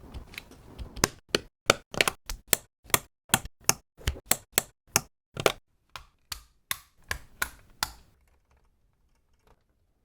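Technic-style plastic building bricks and pins clicking and snapping together in a quick, irregular run of sharp clicks that stops about eight seconds in.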